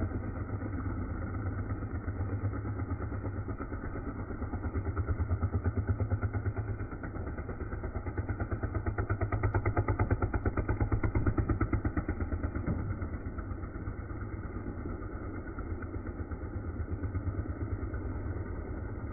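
Motorcycle engine running steadily as the bike laps the vertical wooden wall of a wall-of-death drum, its sound swelling and fading with each pass and loudest about halfway through.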